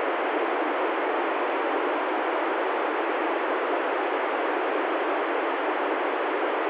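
Steady FM radio hiss from an ICOM ID-51 handheld transceiver tuned to the ISS downlink on 145.805 MHz with its squelch open: between transmissions no signal is coming in, so only receiver noise is heard.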